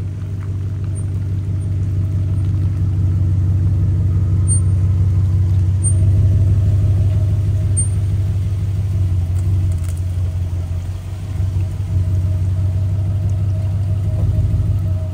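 Range Rover V8 running with its mufflers deleted: a loud, steady, deep exhaust note that grows louder over the first few seconds and dips briefly about two-thirds through.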